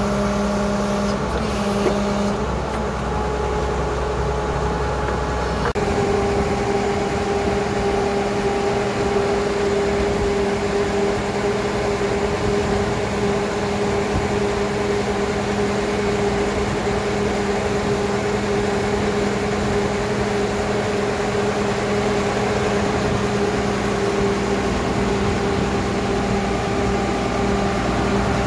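Horizontal directional drilling rig running: a steady engine and hydraulic drone with a constant tone held over it.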